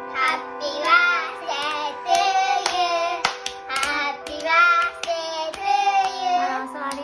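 Two young children singing together and clapping their hands in time, over steady background music.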